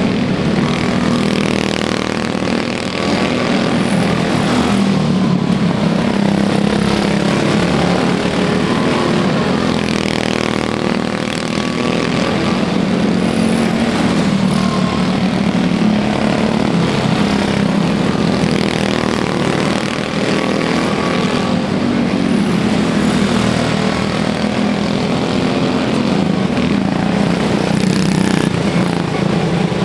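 Quarter midget race cars' small single-cylinder Honda engines running together at race pace in a steady drone, swelling and dipping slightly as the cars circle the track.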